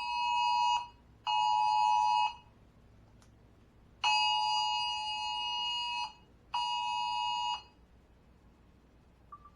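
Wireless Emergency Alert attention signal sounding from a phone speaker: a two-tone alarm beep in on-off blasts, two one-second beeps, a pause, then a two-second beep and a one-second beep, stopping about eight seconds in.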